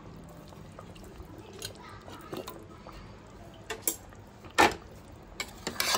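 A few light clinks and knocks of kitchen utensils against a steel pressure cooker pot over low room noise, the sharpest about two-thirds of the way through and a quick cluster near the end.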